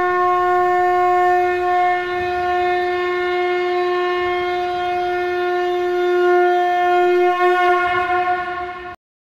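One long blown horn note, held steady at a single pitch for about nine seconds, wavering slightly near the end before cutting off suddenly.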